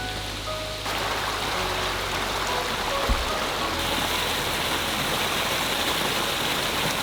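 Mountain stream rushing over rocks, a steady loud wash of water that cuts in about a second in after a few soft musical notes. A brief thump sounds about three seconds in.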